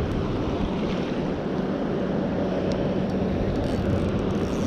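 Wind buffeting the microphone over water washing around, with a faint steady low hum underneath.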